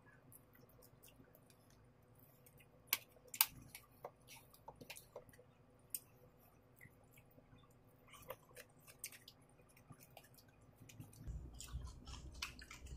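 Quiet close-up eating sounds of a seafood boil eaten by hand: chewing, lip smacks and sparse sharp clicks from mussel shells. Two louder clicks come about three seconds in. A low rumble rises near the end.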